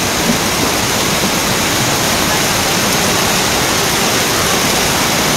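Loud, steady rushing of a muddy floodwater torrent surging down a street, mixed with heavy rain.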